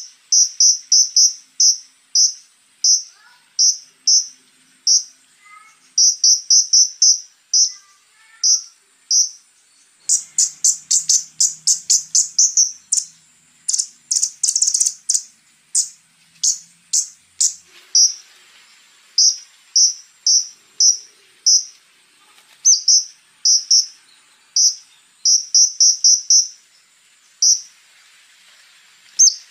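Scarlet-backed flowerpecker (konin) singing: rapid runs of very high, sharp, ticking notes in bursts, coming thickest about a third of the way in. A faint steady high whine sits underneath.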